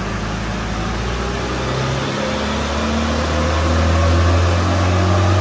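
Land Rover 300Tdi 2.5-litre four-cylinder turbodiesel, tuned with a turned-up fuel pin and boost raised to 1.1 bar, running under load on a rolling-road dyno. Its revs and loudness climb from about two seconds in.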